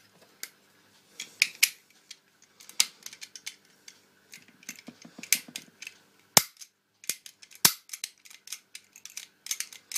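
Clicks and rattles of an MP-654K 4.5 mm air pistol being reassembled by hand, its slide and parts snapping into place. Two sharp, louder clicks come about six and a half and seven and a half seconds in.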